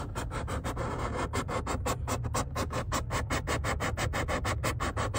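Unexplained underground noise heard from the bottom of a six-foot hole dug down to rock: rapid, evenly spaced pulses, about seven a second, over a steady low hum. Its cause is unknown; a tunnel boring machine, a pipeline or a high-pressure gas line have been suggested.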